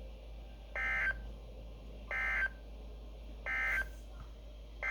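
NOAA Weather Radio end-of-message code, heard through a Midland WR-120 weather radio's speaker: three short bursts of SAME digital data tones, about a second and a half apart, marking the end of the severe thunderstorm warning. Just before the end a fourth, longer burst of the same tones begins, the header of the next alert.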